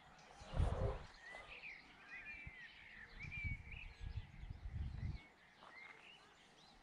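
Songbirds chirping: a run of short, quick calls, with low wind gusts rumbling on the microphone, the strongest about half a second in and more from about three to five seconds.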